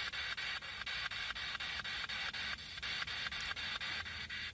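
Handheld ghost-hunting spirit box sweeping through radio stations: a steady hiss of static chopped by quick, even clicks about seven times a second.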